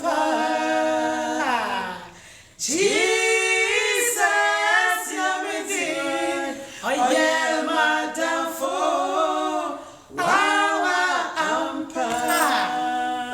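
Women's voices singing a gospel song unaccompanied, in harmony, in sung phrases broken by short pauses about two and a half and ten seconds in.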